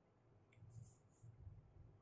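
Near silence: room tone with a few faint low bumps and a soft click about half a second in.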